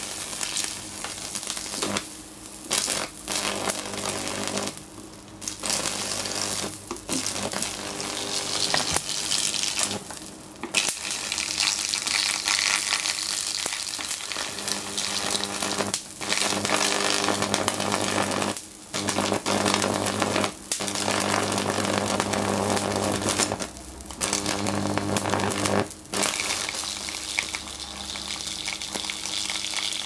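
High-voltage arc from a microwave oven transformer buzzing and crackling as it burns across an LCD TV panel. Under the crackle runs a steady mains-frequency hum. The arc cuts out for a moment about ten times and restrikes each time.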